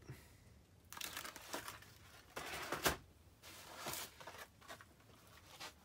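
Plastic packaging and bubble wrap crinkling as hands rummage in a cardboard box, in three short bursts of rustling with a sharp click near the middle.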